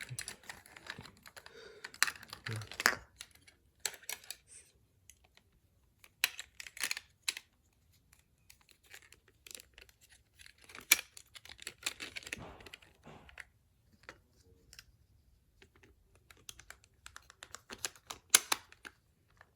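Small plastic toy parts being handled and worked on by hand: irregular clusters of clicks, taps and light rattles with short quiet gaps.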